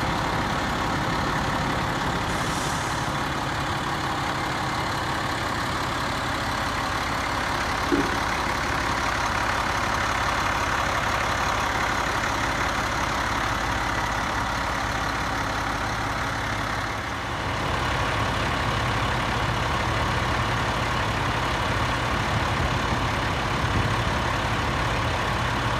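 International DT530E inline-six diesel engine idling steadily, with one short knock about eight seconds in.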